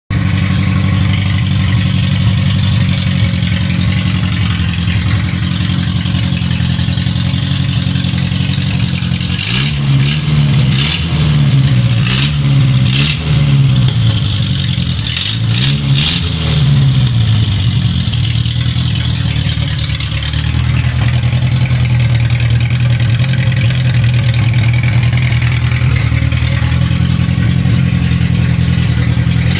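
Willys Hurricane F-head engine idling steadily after being tuned, blipped several times in quick succession about ten to seventeen seconds in, then settling back to a steady idle.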